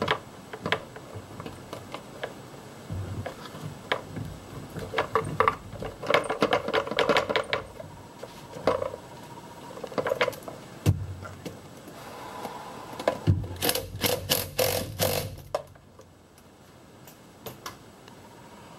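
Light clicks and knocks of hand work on a plastic air filter box, with two runs of rapid clicking, one about five seconds in and another about two-thirds of the way through.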